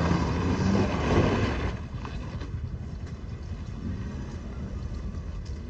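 A motor vehicle running with a steady low rumble and a louder rush of noise over the first couple of seconds.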